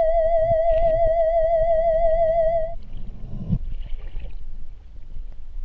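Eerie music: a single held note with a steady wobble, cutting off suddenly about two and a half seconds in. After it, underwater camera ambience: a low rumble with faint scattered clicks and a soft thump.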